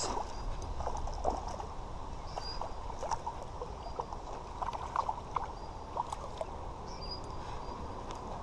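Light water sounds with scattered soft knocks and taps over a steady low rumble, the kind of sound a small boat makes on a pond.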